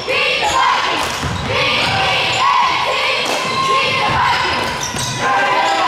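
Basketball being dribbled on a hardwood gym floor during play, a run of sharp bounces that ring in the large gym, mixed with squeaks or calls from the court.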